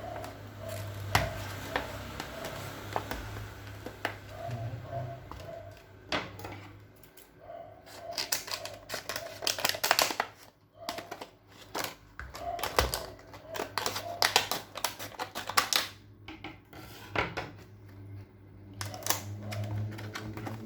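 Irregular sharp clicks and clatter of hard plastic being handled, from a Dymo embossing label maker and its packaging, with a low steady hum underneath.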